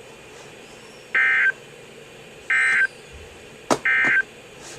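Emergency Alert System end-of-message data bursts from a NOAA Weather Radio broadcast: three identical short electronic chirps, each about a third of a second long and about 1.4 s apart, closing the severe thunderstorm warning. Two sharp clicks come in the second half.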